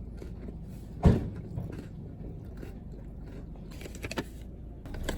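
Steady low hum with one sharp thump about a second in, followed by a few light clicks and handling noises.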